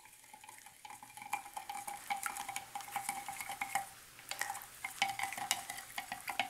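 A spoon stirring in a glass jar, clinking quickly and irregularly against the glass with a faint ring from the jar. It is powder dye being dissolved in hot water.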